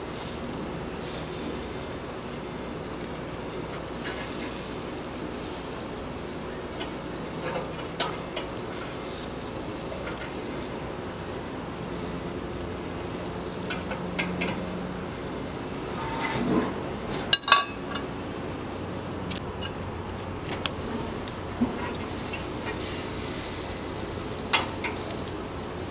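Chicken breasts sizzling on a gas grill's grates, with the clicks and scrapes of metal tongs lifting and turning them. The loudest is a sharp metallic clatter about two-thirds of the way through.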